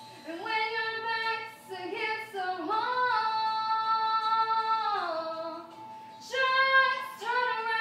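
A single high female voice singing a slow melody, holding long notes; the longest is held from about three to five seconds in, and the voice breaks off briefly near six seconds before starting again.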